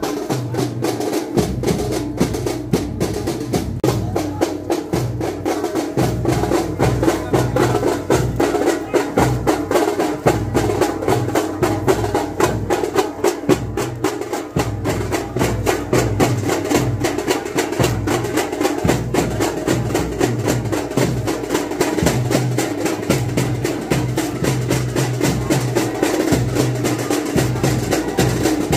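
Procession drums played fast and without a break: many sharp stick strokes a second over a repeating lower beat.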